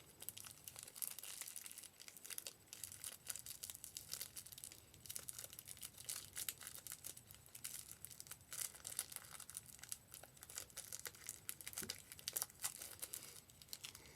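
Paper and plastic packaging being handled: irregular crinkling and rustling with many small crackles and clicks.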